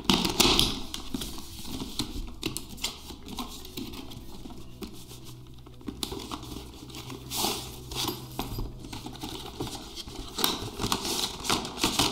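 Cardboard box and clear plastic blister packaging handled by hand: scraping, rustling and crinkling with scattered clicks as the box is opened and the plastic tray slid out, loudest just after the start.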